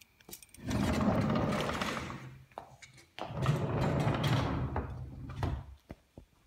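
Aluminium-framed sliding door rolling along its track twice, each pass about two seconds long with a few clicks: slid open, then slid shut again.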